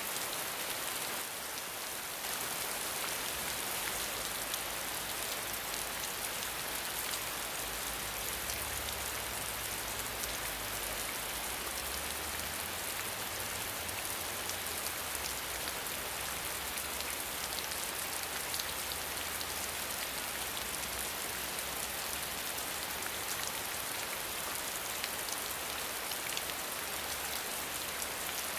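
Gentle rain falling steadily: an even hiss with scattered ticks of single drops.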